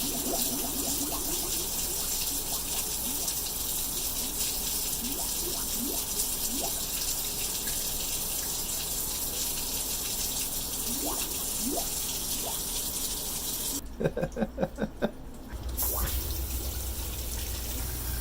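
Household water running and filling, with scattered gurgles, as freshly thawed supply pipes flow again. A quick run of rapid pulses comes about fourteen seconds in.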